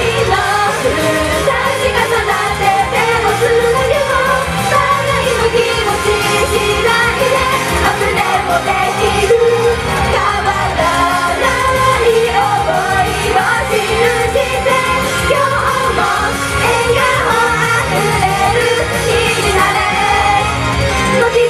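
Live J-pop idol song: a group of young women singing together into handheld microphones over a loud, steady pop backing with a beat, heard through the venue's PA.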